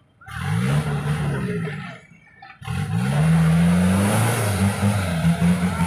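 Off-road pickup truck's diesel engine revving hard twice under full throttle in deep mud. The first is a short rise and fall, the second a longer run held at high revs whose pitch wavers near the end, as the truck pours black smoke.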